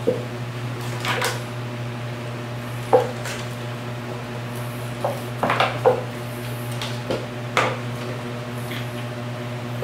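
Several sharp taps and clatters over a steady low hum, the loudest about three seconds in and a quick cluster around six seconds.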